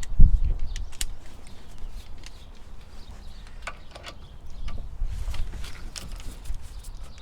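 Scattered light clicks and knocks over a low rumble, with one heavier thump just after the start.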